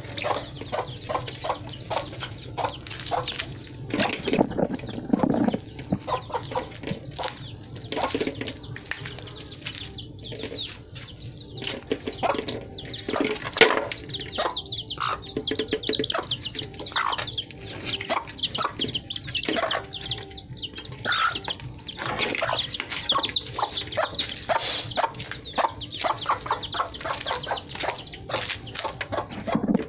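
Puppies eating rice from a metal basin, making many quick clicks and clatters as they chew and knock against the pan, while a hen clucks and chirps beside them.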